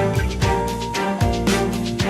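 Instrumental background music with a steady beat and a moving bass line.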